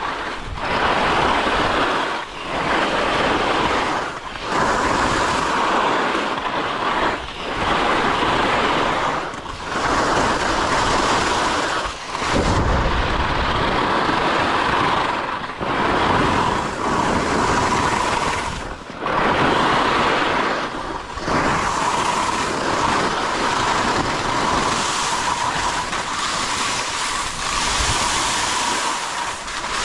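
Skis hissing and scraping over snow through a run of turns. The rush swells and eases off every two to three seconds.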